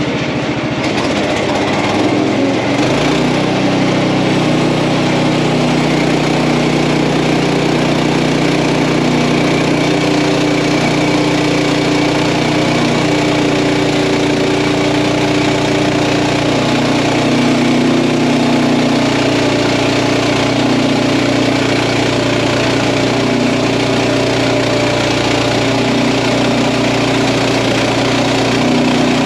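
Frontier OS31 portable band sawmill's small gasoline engine running steadily; its pitch shifts and settles about two to three seconds in.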